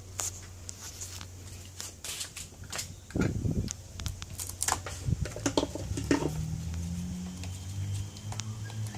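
Lathe spindle drive from a treadmill motor on a homemade speed controller, giving a steady electrical hum with scattered sharp clicks and knocks and a dull thump about three seconds in. A second, higher hum comes in about six seconds in and steps up near the end, as the motor speed changes.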